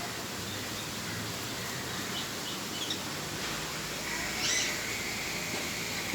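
Birds chirping against a steady outdoor noise, with a few short chirps and then a louder call about four and a half seconds in. A thin, steady high tone joins from about four seconds in.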